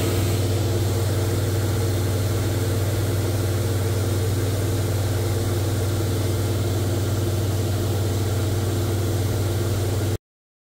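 Cockpit sound of a Cozy MKIV canard pusher airplane in cruise flight: the engine and propeller drone steadily under a hiss of air. It cuts off suddenly near the end.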